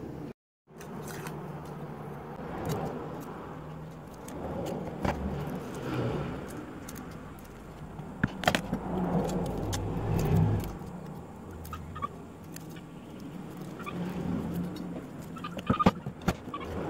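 Road traffic passing on a nearby highway, a low rumble that swells and fades as vehicles go by. Over it, a few sharp taps and clicks of boiled quail-egg shells being cracked and peeled on a wooden chopping board, with a brief dropout in the sound just after the start.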